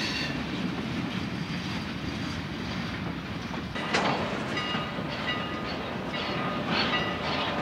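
Freight cars rolling along the track with a steady low rumble of wheels on rail. About four seconds in there is a sharp clank, and after it thin, high wheel squeals come and go.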